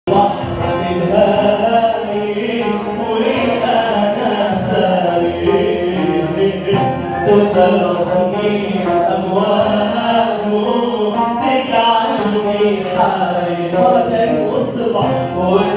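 Music: the introduction of an Arabic Christian hymn, with choir-like voices over instrumental accompaniment and light percussion.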